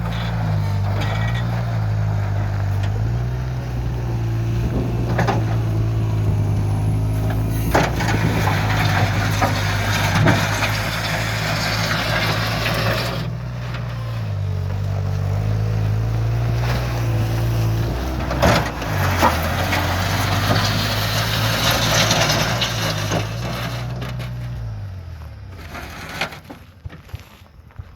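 1989 Bobcat 642B skid steer running, its engine holding a steady note that steps up and down in pitch a few times, with stretches of hissing noise and a few knocks over it. Near the end the engine dies away, leaving a few scattered clicks.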